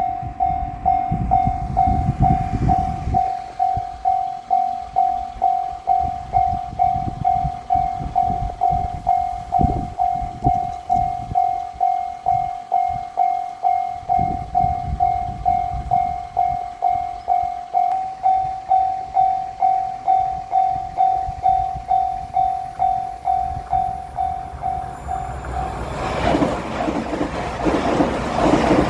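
Japanese railroad crossing's warning bell clanging steadily, about two strikes a second. Near the end it is swamped by the loud rumble and wheel noise of a JR Shikoku 8600 series limited express electric train passing over the crossing.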